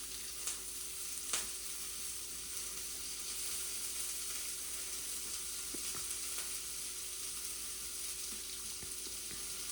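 Steady background hiss with a faint constant hum and a couple of faint clicks near the start: room tone with no distinct source.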